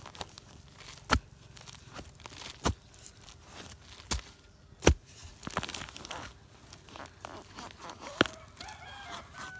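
Metal digging tool striking and chopping into loose forest soil around a bamboo shoot: about five sharp, irregular strikes, with scraping and crumbling of earth and leaf litter between them.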